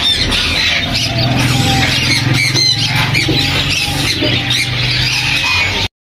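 A cageful of Bengalese finches chirping, with short high calls every second or so over a steady low hum; the sound cuts off abruptly near the end.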